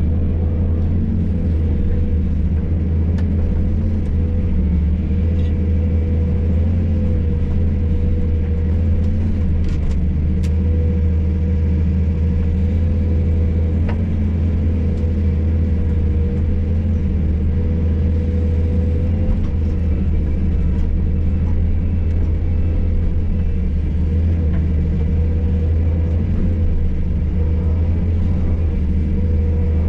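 Hydraulic excavator's diesel engine running steadily at working speed, a deep, even drone, with a few faint knocks as it moves rubble.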